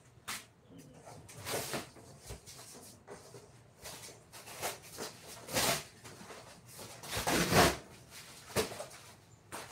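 A series of irregular short scraping or rubbing strokes from hand work on wood, the longest and loudest about seven and a half seconds in.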